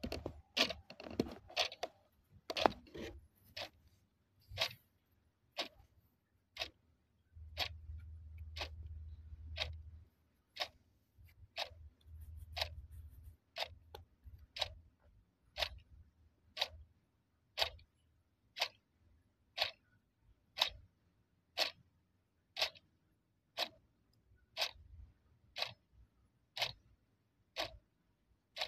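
Clock ticking, one sharp tick about every second, with a faint low hum underneath for a few seconds about a third of the way in.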